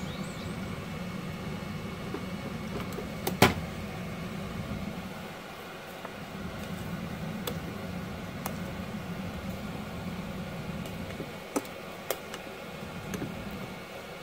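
Steady low appliance hum in a small kitchen, with one sharp click about three and a half seconds in as the rice cooker's lid is released and pops open. A few lighter taps follow near the end as the rice paddle stirs the rice in the cooker's inner pot.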